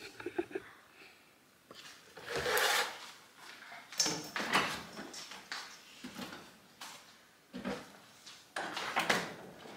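Kitchen drawers and cabinets being opened and shut, with cups and containers handled: a scattered series of short knocks, clicks and scrapes.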